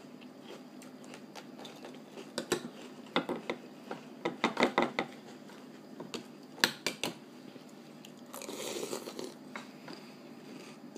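Eating a bowl of ring cereal: a metal spoon clicks and scrapes against the ceramic bowl in several quick clusters, with a crunchy chewing noise near the end.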